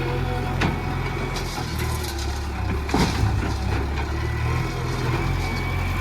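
Heavy diesel engine running steadily with a deep hum, with a couple of sharp knocks or clanks over it, about half a second in and again about three seconds in.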